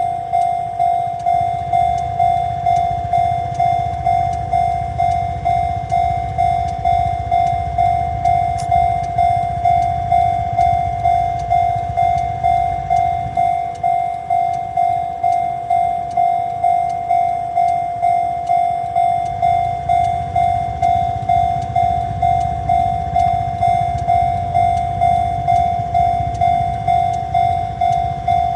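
Railway level-crossing warning bell ringing over and over, about one and a half strokes a second, each ring fading before the next, with a low rumble underneath.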